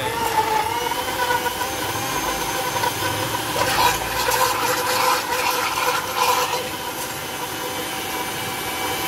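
Sujata mixer grinder running with a steady whine, blending frozen jamun fruit with sugar syrup and water into a thick purée.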